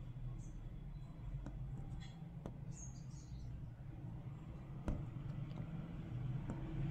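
Faint clicks and ticks of hand bead embroidery, a needle and thread drawing small beads onto fabric, over a steady low hum. A few short high chirps come about two to three seconds in.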